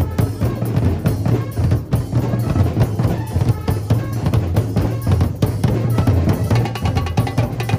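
Drum corps of large bass drums struck with padded mallets, playing a fast, driving rhythm of dense strokes. Sharper, higher taps join in near the end.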